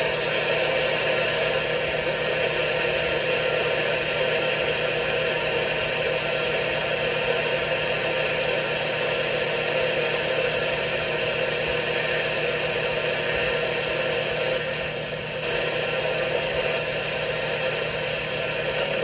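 Steady radio static: an even hiss with a low hum underneath and no programme audio.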